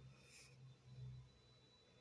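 Near silence: a faint low hum with a brief soft hiss.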